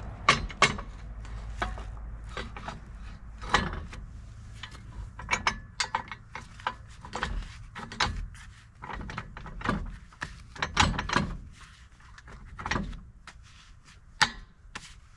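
Irregular knocks, clanks and scrapes of hitch parts being worked into place by hand, over a low steady rumble that fades away about halfway through.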